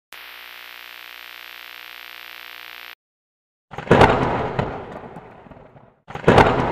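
Intro sound effects: a steady hiss with a hum for about three seconds, a short gap, then a loud thunderclap crash that dies away over about two seconds, and a second crash near the end.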